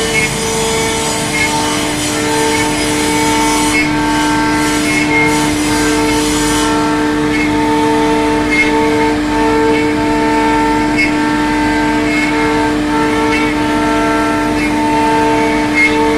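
CNC router spindle running and cutting wood, a steady multi-tone whine over the cutting noise.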